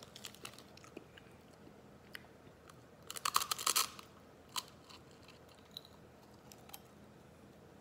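A dry, uncooked block of instant ramen noodles being bitten and crunched. There are a few faint crackles at first, then a loud burst of brittle cracking about three seconds in as a bite snaps off, one more sharp crack a second later, and then only scattered small crunches of chewing.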